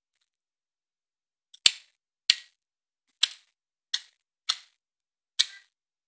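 Black woodpecker hacking at a tree trunk with its bill: six sharp, separate blows at an uneven pace, roughly one every half second to a second, the first two with a dull thud behind the crack.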